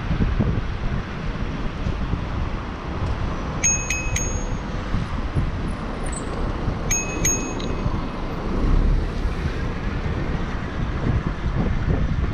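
Wind rumbling on the microphone of a moving bicycle, with a bicycle bell rung twice, a few quick dings each time, about four and seven seconds in.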